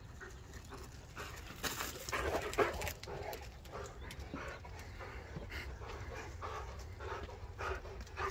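Dog panting hard in a run of quick breaths after running about in play, loudest a couple of seconds in.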